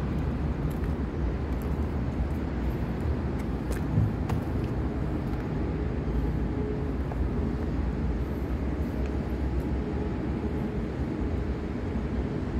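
Steady low background rumble with a few faint, scattered knocks and one low thump about four seconds in.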